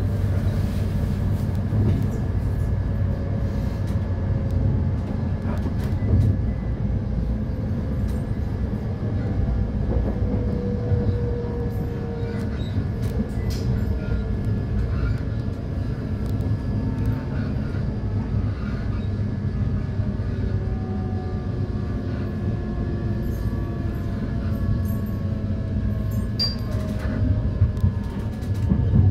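Electric commuter train running along the line: a steady low rumble of wheels on track, with the whine of the traction motors gliding slowly in pitch. Loudness rises briefly near the end.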